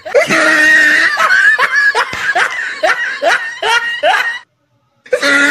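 A man laughing hard in repeated bursts, about two a second. The laughter cuts off suddenly about four and a half seconds in, and after a brief silence it starts again near the end.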